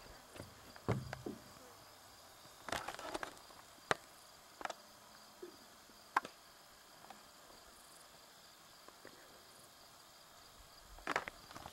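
Quiet prairie creek-side ambience: a faint steady insect hum, broken by about half a dozen scattered sharp clicks and knocks.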